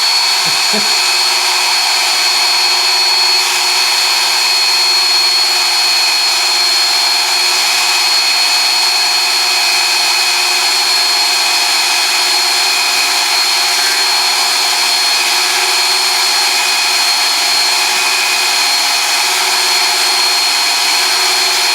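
Electric grinder running steadily at full speed, a constant rushing noise with a steady high tone, as the hardened steel chisel is ground.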